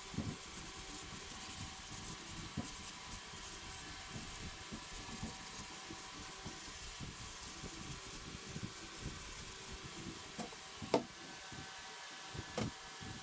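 Hand-sanding white plastic helmet parts and Bondo-puttied seams with sandpaper: irregular rubbing and scratching strokes. A sharp knock about eleven seconds in is the loudest sound, and a smaller knock follows near the end.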